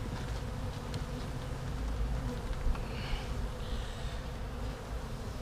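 A colony of Italian honey bees buzzing around an opened hive box: a steady, even hum.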